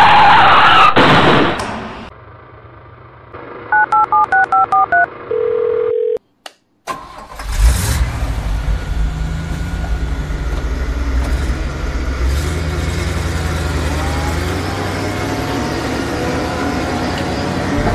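A loud noisy burst, then a quick run of eight telephone keypad touch-tones and a short steady tone before a brief silence. About seven seconds in, a truck engine sound starts and runs steadily, its pitch rising and falling a little.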